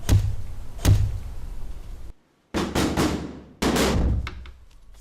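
Heavy, sharp thuds with ringing tails: single strikes at the start and about a second in, a brief cut to silence, then two quick clusters of strikes.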